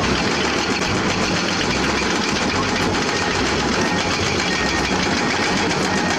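An engine running steadily, a dense unchanging mechanical noise.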